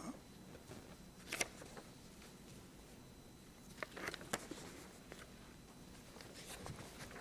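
Quiet room tone with a few faint clicks and rustles, once about a second and a half in and a couple more around four seconds.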